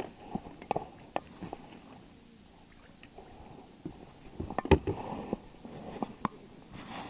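Scattered light clicks and knocks of small objects being handled, with a denser cluster and the loudest knock about four and a half seconds in.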